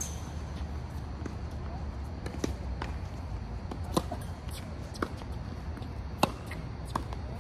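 Tennis ball on racket strings and on an outdoor hard court: a few light bounces or taps, then a sharp serve about four seconds in, followed by return and volley hits, the sharpest about six seconds in. A steady low hum runs underneath.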